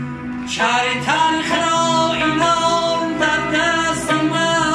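Music from a Tajik song, with no words sung. A wavering melody line comes in strongly about half a second in and carries on over the accompaniment.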